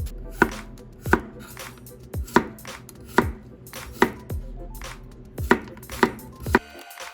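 Knife chopping on a cutting board, with sharp, irregular strokes about one or two a second, each with a dull thud from the board.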